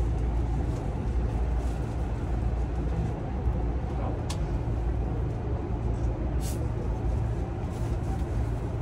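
Interior sound of a JR East E233-0 series electric train, heard inside a motor car: a steady low hum and rumble, with a couple of faint clicks.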